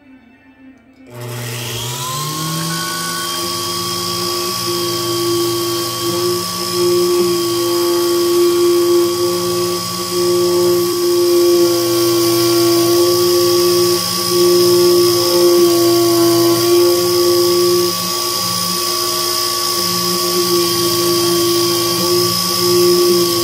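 Sherline 2010 CNC milling machine's spindle starting about a second in, its whine rising quickly in pitch and then holding steady at about 10,000 rpm as a carbide tool cuts 7075 aluminium. The whine has brief dips every few seconds.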